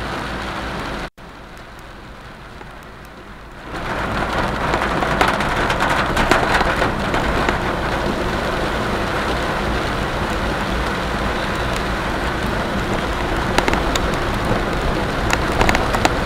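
Heavy rain falling as a steady hiss, with scattered sharp drop taps. It is quieter for the first few seconds after a brief cut about a second in, then louder from about four seconds.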